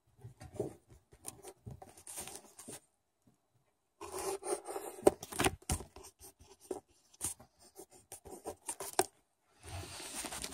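Handwriting on paper: short scratchy strokes and taps, pausing for about a second partway, then busier. Near the end comes a rubbing handling noise as the phone is picked up.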